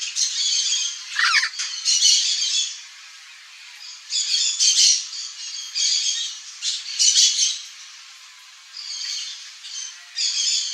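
Turquoise-fronted parrot (Amazona aestiva) calling: a series of squawks in bursts of about half a second to a second, broken by two pauses of about a second. There is one short gliding note about a second in.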